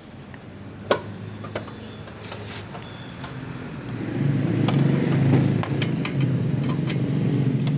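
Motorcycle engine idling steadily, louder from about four seconds in, with a few sharp clicks and taps scattered over it.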